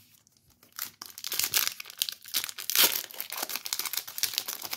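Crinkly plastic trading-card packaging being handled, a dense run of fine crackles that starts about a second in and is loudest near the three-second mark.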